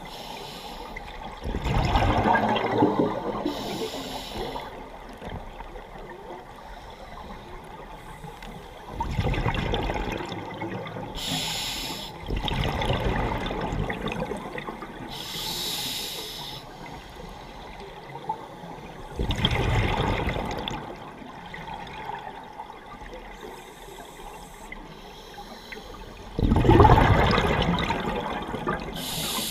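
Scuba diver breathing on a regulator, heard underwater: four long rushes of exhaled bubbles several seconds apart, with shorter high hisses between them.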